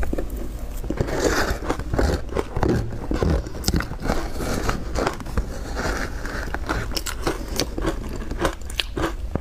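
Soft crushed ice coated in milk powder being bitten and chewed close to the microphone: a dense run of crunching, crackling bites. A metal spoon scrapes the plastic bowl as more is scooped.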